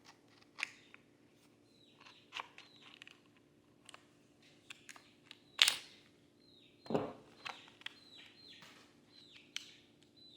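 Small clicks and crinkles of a package being opened by hand, with a sharper click a little past halfway and a low thump about seven seconds in. Short chirps that fall in pitch repeat faintly throughout.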